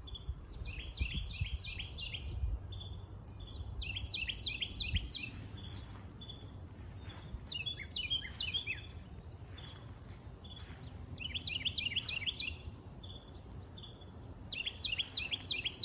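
Small birds chirping: five bursts of quick, falling chirps a few seconds apart, with single short chirps in between. A low rumble underlies the first five seconds.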